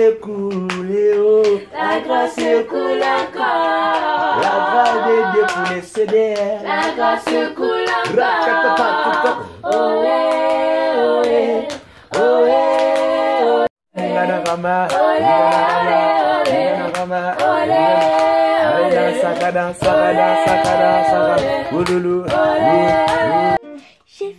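Several voices singing a cappella together, with hand-clapping keeping the beat. The singing stops briefly about 14 seconds in, then carries on.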